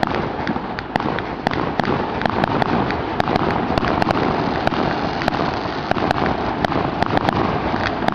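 Fireworks going off: many sharp cracks and crackles over a dense, continuous rumble of bursts.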